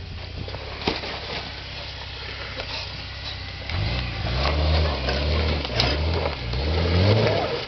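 Toyota Land Cruiser 80's engine running low and steady, then from about halfway revving up and down several times, with knocks and rattles over it.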